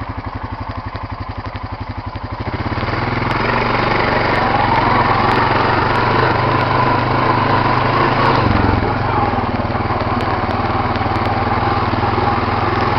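Quad ATV engine putting at low revs with even pulses, then opening up about two and a half seconds in and running steadily under throttle, its pitch rising, with a brief change near the middle.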